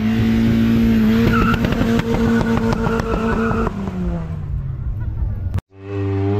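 Car engine revved up and held at high revs for about three and a half seconds, then dropping back down. After an abrupt cut near the end, another engine is heard revving.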